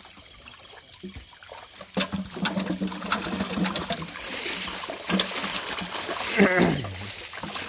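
Fish thrashing and splashing in shallow water inside a hauled-in seine net as they are grabbed by hand, starting about two seconds in. Near the end a short cry falls steeply in pitch.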